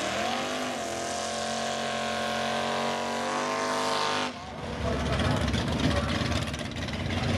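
Drag race car engine at full throttle down the strip, its pitch climbing and then held high for about four seconds before it cuts off suddenly as the driver lifts. A lower, rougher engine rumble follows.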